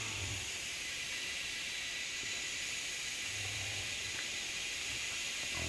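A steady high-pitched hiss, with a few brief, faint low thuds or grunts near the start, about three and a half seconds in, and at the end.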